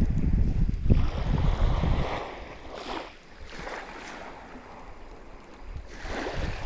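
Wind buffeting the microphone with a heavy rumble for about two seconds, then small waves washing and splashing in several short surges.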